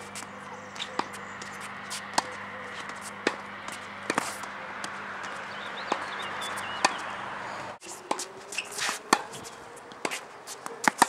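Tennis rally: a ball being struck by racquets and bouncing on a hard court, sharp pops about once a second.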